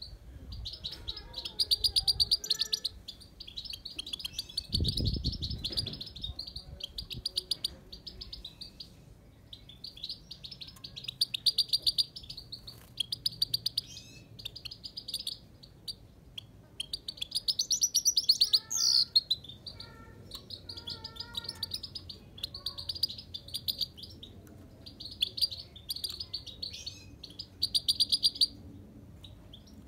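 Himalayan goldfinch singing in its cage: repeated phrases of rapid, high twittering notes, each a second or two long, with short pauses between. A low thump about five seconds in.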